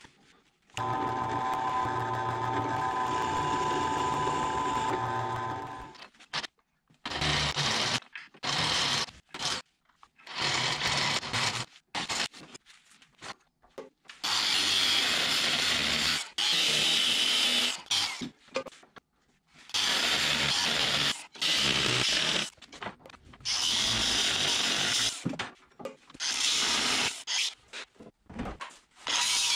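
Power tools, an angle grinder among them, working steel in a string of short clips that start and stop abruptly. The first clip is a motor running with a steady whine for about five seconds; it is followed by many one- to two-second bursts of harsh grinding and cutting noise.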